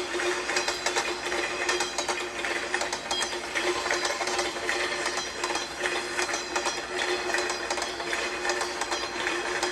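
Small motorised toy train running on its track: a steady motor hum under a fast, continuous clickety-clack of wheels and gears.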